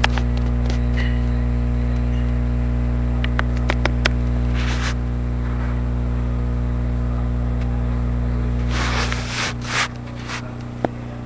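A steady low hum with a few short rustles and scrapes over it; the hum cuts off suddenly about nine seconds in.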